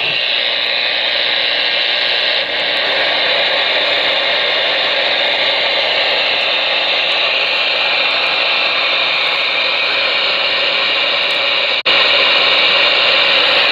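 Steady static hiss from the Ranger RCI-2970N2 radio's receiver through its speaker, squelch open with no station talking. It breaks off for an instant about twelve seconds in.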